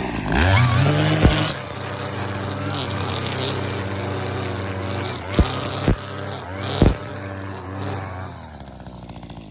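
String trimmer engine revving up and running at speed, its line head angled steeply into the ground to dig out sod along a new lawn edge. Several sharp strikes break through as the spinning line hits dirt, and the engine eases off near the end.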